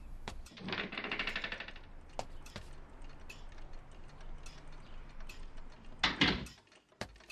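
Faint, irregular clicking of keys being typed, after a short rattling buzz about half a second in.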